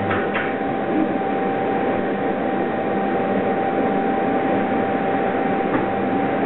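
A deep electrical hum from the short-circuit test current in the earthing clamp and cable stops just after the start, at the end of the roughly one-second test shot. Then a steady rushing machine noise with a constant high-pitched tone runs on from the high-current test rig.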